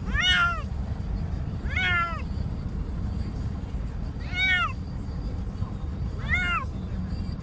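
Domestic cat meowing from inside a plastic pet carrier: four drawn-out meows about two seconds apart, each rising then falling in pitch, over a steady low rumble.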